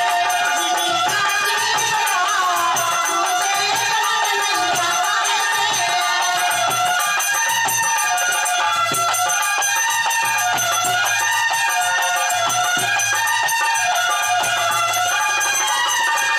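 Bundeli rai folk tune played on harmonium, with a dholak and rattling percussion keeping a steady beat.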